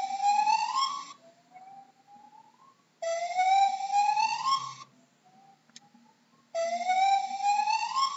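Gibbon calling: three loud, long notes, each rising steadily in pitch, with fainter rising notes in the gaps between them.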